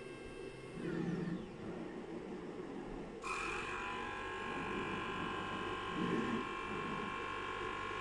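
Stepper motors of the desktop robot arms and conveyor on a Dobot colour-sorting line whining as they drive. A set of steady high tones glides down and stops about a second in. A new set starts suddenly about three seconds in, holds steady and cuts off sharply at the end.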